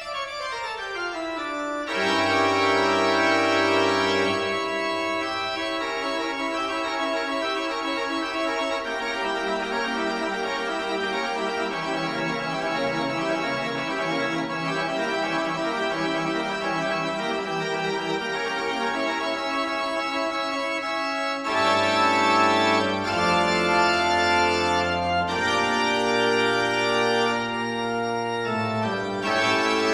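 Instrumental background music of long held chords, opening with a downward slide in pitch and growing fuller and louder about two-thirds of the way through.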